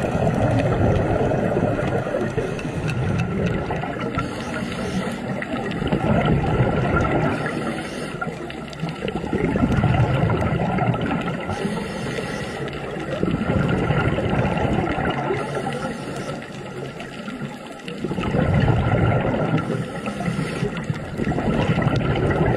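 Underwater sound of a scuba diver breathing through a regulator: exhaled bubbles rumbling in swells every four to five seconds, over a faint steady hum.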